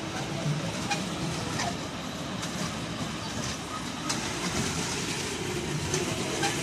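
Children's ride-on mini train running along its small steel track: a steady rumble from the wheels with occasional sharp clicks.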